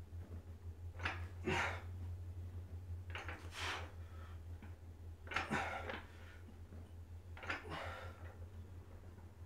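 A man breathing out hard in short hissy breaths, about one every two seconds, in time with his ab reps on a weight bench, over a steady low electrical hum.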